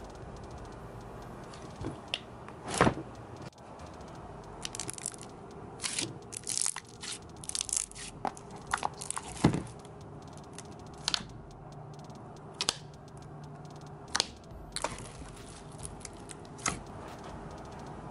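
Jelly slime made with instant snow powder being stretched, folded and squeezed by hand, giving irregular wet clicks, crackles and squelches.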